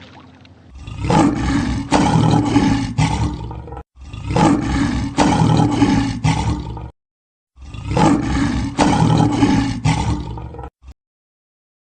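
A large wild animal roaring three times, each roar about three seconds long, loud and coarse, and each ending abruptly.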